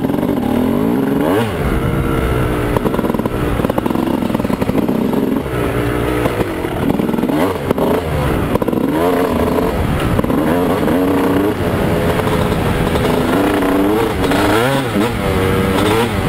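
2001 Honda CR250's two-stroke single-cylinder engine, fitted with a Steahly 10 oz flywheel weight, being ridden hard, its revs rising and falling again and again.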